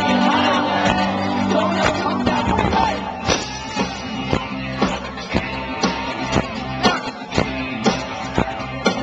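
Live rock band playing: singing with electric guitar over the first couple of seconds. About three seconds in the drums come forward with a steady beat of about two hits a second.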